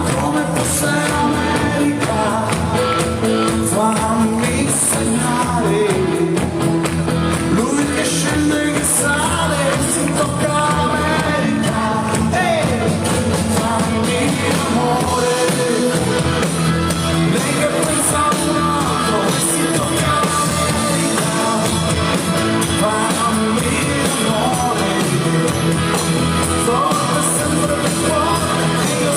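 Live band playing a rock song, with a singer's voice over guitar and drums.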